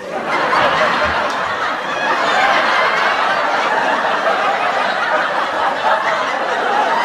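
Sitcom laugh track: a studio audience laughing together, starting abruptly and holding steady.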